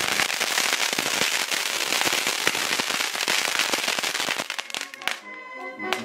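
A string of firecrackers going off in a rapid, dense crackle that stops suddenly about five seconds in. A brass band is faintly heard as the crackling stops.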